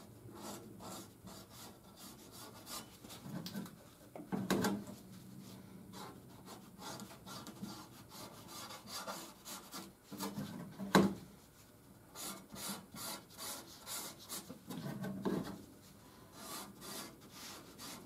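A marker scratching in repeated short strokes across a bare steel patch panel as an outline is traced onto it, with gloved hands rubbing and shifting the sheet metal. Two louder knocks come about four and eleven seconds in.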